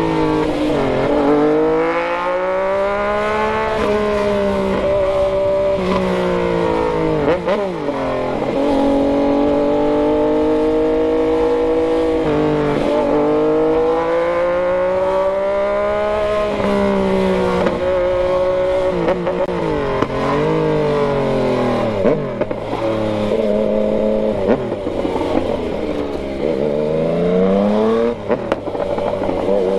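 Yamaha MT-09's inline three-cylinder engine pulling through the gears: the note climbs steadily, then drops sharply at each gear change, about half a dozen times, with short dips where the throttle is eased.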